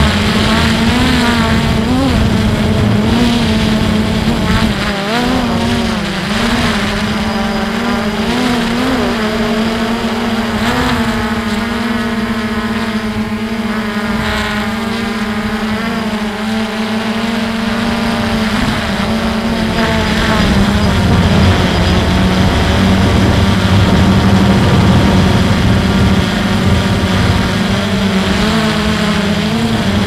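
Multirotor drone's motors and propellers buzzing in flight: a steady hum whose pitch wavers and glides up and down as the drone manoeuvres, over a low wind rumble.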